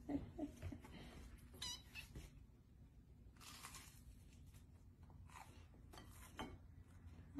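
A kitten gives one short, faint meow about two seconds in, with light rustling and handling noises around it.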